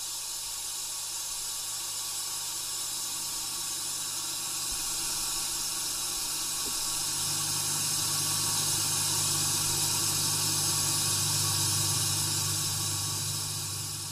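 Steady hissing ambient drone with a low hum underneath, made of many held tones; it swells a little about halfway through and begins to fade out at the very end.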